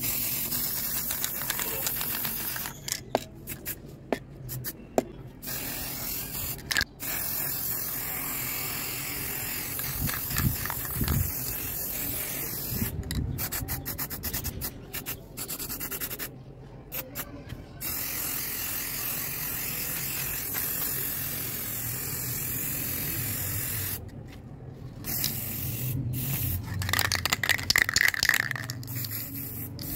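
Acrylic aerosol spray paint can hissing in long bursts, with several short breaks between passes.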